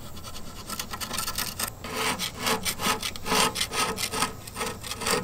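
Gasket scraper scraping the old gasket and its black residue off the ceramic rim of a Big Green Egg, in repeated strokes about three a second that grow louder about two seconds in. The rim is being scraped back to bare ceramic so a new gasket will stick.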